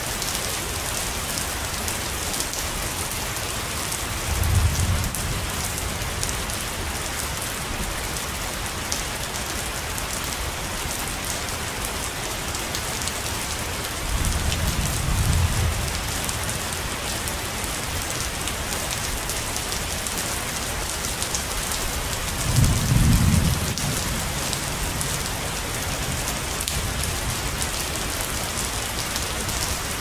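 Rain falling steadily, with three low rumbles of thunder about 5, 15 and 23 seconds in; the last is the loudest.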